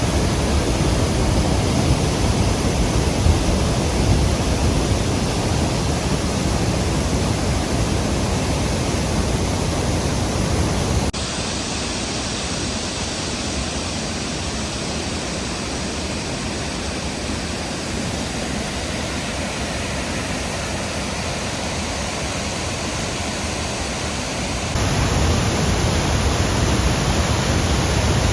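Large waterfall in heavy flow: a steady, deafening rush of falling water. About eleven seconds in it turns softer and duller, and it comes back louder near the end.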